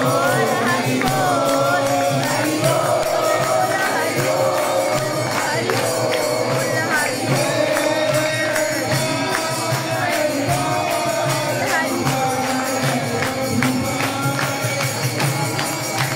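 Devotional singing over jingling hand percussion that keeps a steady beat.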